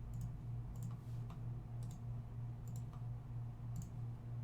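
Computer mouse clicking: a handful of sharp clicks, roughly one a second and some in quick pairs, over a steady low electrical hum.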